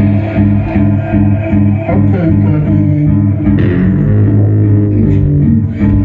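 A live band playing loud, amplified music: a low, pulsing bass line repeating several times a second under a dense layer of synthesizer and guitar-like tones.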